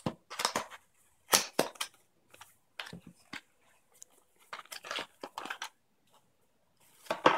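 A small cardboard box being opened by hand: the end flap pulled back and the contents slid out, with short irregular crackles and scrapes of card and packaging.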